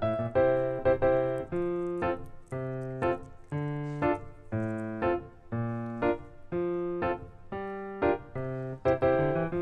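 Background music: a light keyboard tune with a steady beat of notes and chords over a bass line.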